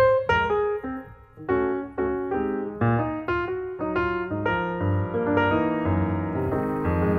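Piano music: a steady run of struck notes and chords, with more held notes in the second half.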